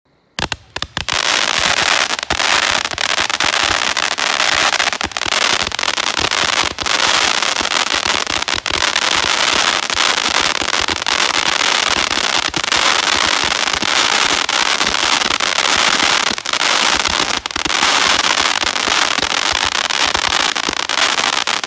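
A 160-shot 14 mm roman candle barrage firing, starting about half a second in: a rapid stream of launches under dense, continuous crackling from its crackling-mine and chrysanthemum-willow stars. It is sold as a low-noise cake.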